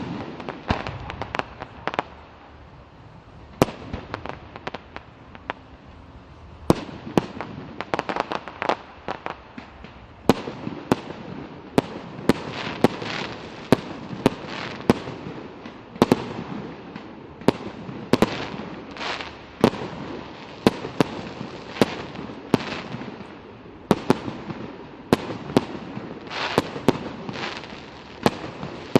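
Fireworks display: shells bursting in an irregular series of sharp bangs, with clusters of crackling between them.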